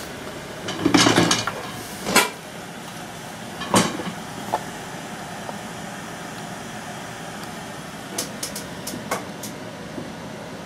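Handling noises of a tablet and its cardboard box: a short scuffing rustle, then two sharp knocks and a lighter one as the tablet is set down on the box, and a run of light clicks near the end, over a steady background hiss.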